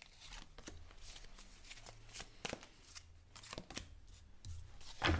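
A deck of tarot cards shuffled by hand: a string of short papery clicks and slaps, then cards set down on a wooden table, with a louder slap near the end.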